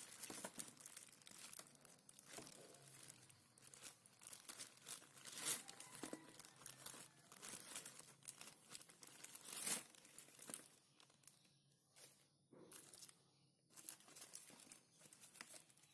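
Thin plastic bag crinkling and rustling as bamboo clams (razor clams) are shaken out of it, the shells clattering into a foam food box. About ten seconds in, the crinkling stops and only sparse light clicks remain as the shells are shifted by hand.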